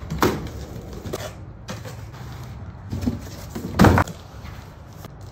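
A cardboard shipping box being opened and a metal motorcycle wheel chock pulled out and set on the garage floor: a few scattered knocks and scrapes, the loudest a heavy thud just before four seconds in.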